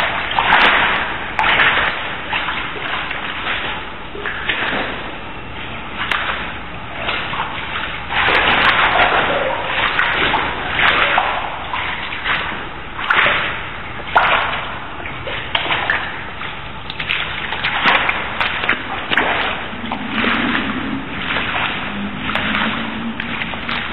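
Footsteps wading through shallow floodwater and mud, a splashing step about every second.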